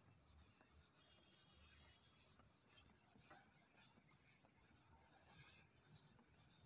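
Faint rubbing of a cloth wiping chalk off a chalkboard, in repeated short strokes.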